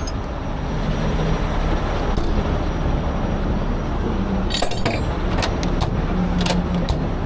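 Steady low rumble of a heavy diesel tow truck's engine running with freeway traffic. From about halfway on come several sharp metallic clicks and clinks as gear is handled and stowed in the truck's side compartment.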